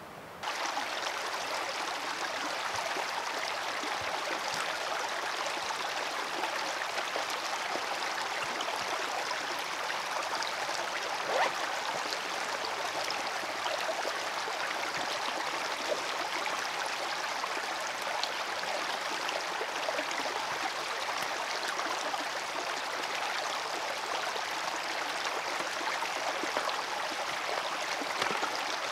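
Shallow stream running and babbling over stones in a steady, even rush that comes in suddenly about half a second in. There is one short sharp tap about eleven seconds in.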